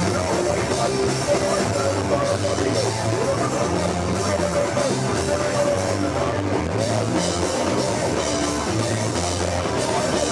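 Punk band playing live: electric guitar, bass and drum kit, loud and steady throughout.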